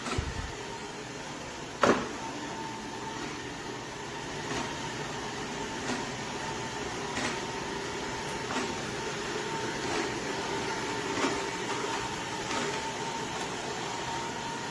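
Shark ION R75 robot vacuum running: a steady motor whine over a hiss of suction, with a faint tick repeating about every second and a half. A sharp click comes about two seconds in.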